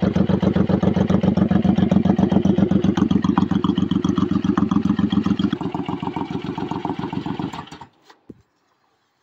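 Motorcycle engine idling with a steady beat of firing pulses, dying away and stopping near the end.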